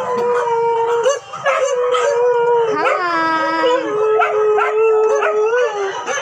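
Several dogs howling together in long, overlapping howls, with new howls sliding up in pitch every second or so.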